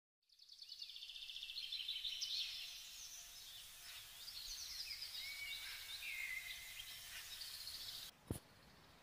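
Several small birds chirping and trilling, many overlapping short calls, as a background ambience track. It fades in just after the start and cuts off suddenly about a second before the end, followed by a single click.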